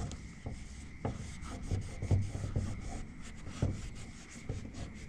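Gloved hands wiping and rubbing down a steering wheel with a cleaning cloth: a run of short, irregular rubbing strokes with light knocks.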